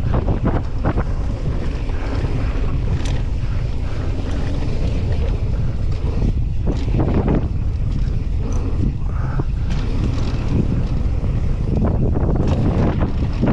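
Wind buffeting the camera microphone of a downhill mountain bike at speed, with frequent sharp knocks and rattles as the bike runs over rough dirt trail.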